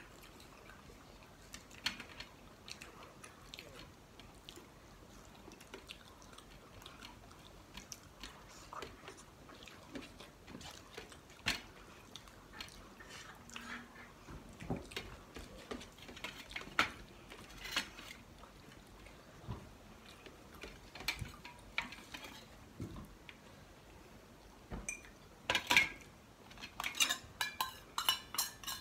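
Eating at a table of stainless steel plates and bowls: scattered clinks of steel on steel and quiet chewing, then a quick run of louder clinks near the end as a steel bowl is tipped against a plate.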